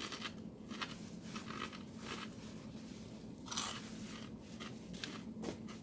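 A person chewing and biting food close to the microphone, with soft irregular crunching clicks, one a little louder about halfway through.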